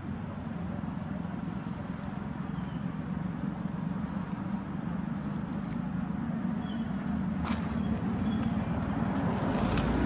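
Steady low rumble of road traffic, swelling a little near the end, with a few faint high chirps and a couple of sharp clicks in the second half.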